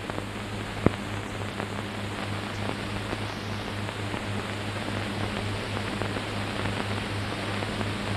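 Hiss and a steady low hum from an old film soundtrack, with faint crackle and one sharp click just under a second in.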